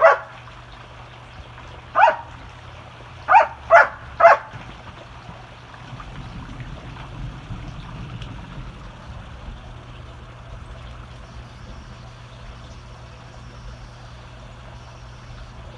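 Dog barking in play: five short, sharp barks in the first few seconds, the last three in quick succession. Then a low rumble for a few seconds.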